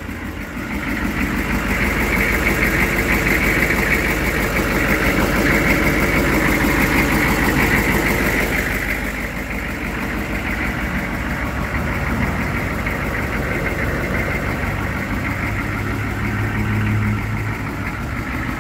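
Dump truck engine idling steadily, a little louder for the first several seconds and easing slightly after.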